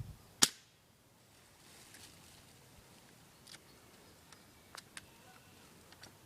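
An airsoft gun fires a single sharp shot about half a second in, followed later by a few faint, short clicks.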